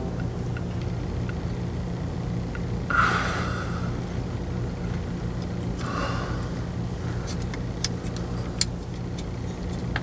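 Steady low hum with two short scraping rustles and a few light metallic clicks, as the governor pressure solenoid and sensor housing is handled and fitted onto the 44RE transmission's valve body.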